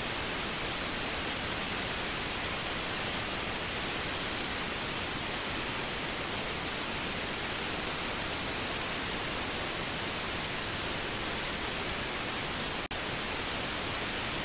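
Tenya CUT50 air plasma cutter cutting through aluminium plate: a steady hiss of the plasma arc and air jet, with one split-second dip near the end.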